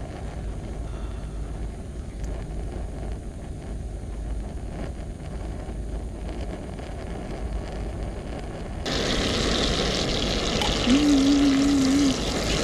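A low steady rumble under a camping gas stove with butter being scraped into a frying pan; about nine seconds in it changes suddenly to melted butter sizzling and foaming in the hot pan.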